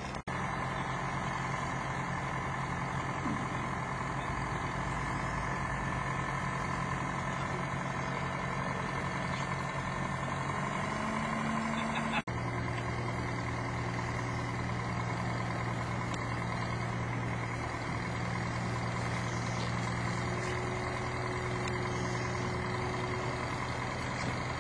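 Heavy diesel engine of a mobile crane running steadily, with a steady higher whine over it. The engine note changes about halfway through, and the sound cuts out for an instant just after the start and again about halfway.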